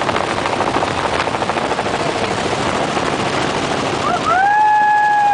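Cabin noise of a small helicopter in flight with a door off: rotor and engine sound mixed with wind rushing in. About four seconds in, a person's long, high cry rises, holds steady and falls away over the noise.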